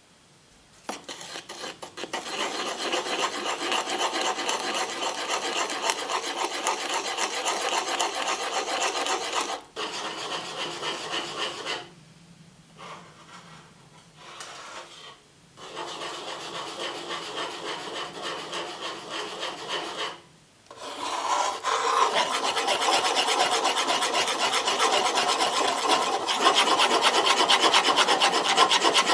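A spoon stirring flour-and-milk batter in a bowl, scraping the bowl's sides in quick repeated strokes. The stirring stops briefly a few times and is loudest in the last third.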